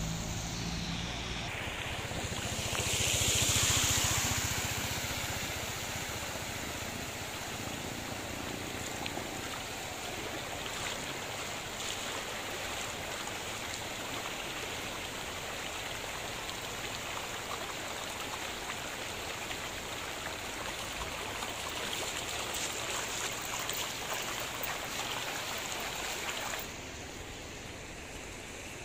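Floodwater rushing across a road: a steady rushing noise that swells briefly about three seconds in and drops quieter near the end.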